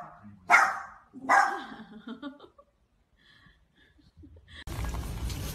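Small white fluffy dog barking twice, short sharp barks about half a second and a second and a half in, then a quiet pause. Near the end a steady noisy hum cuts in abruptly.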